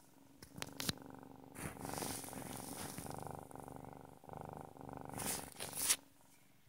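Pet cat purring close to the microphone, a finely pulsed purr that swells and eases with its breathing. A few brief rustling noises come just before the purr starts and again near the end.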